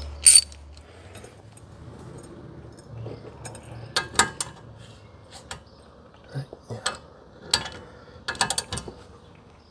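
A wrench clinking against a stuck brake line fitting on a Corvette front brake caliper: irregular metallic clicks in short clusters as the seized fitting is worked loose.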